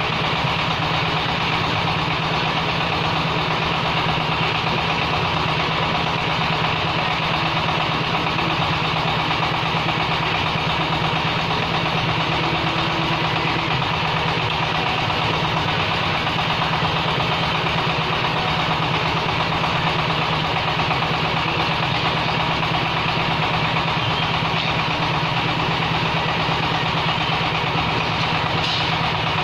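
Diesel engine driving a clay brick extrusion machine, running steadily at a constant speed.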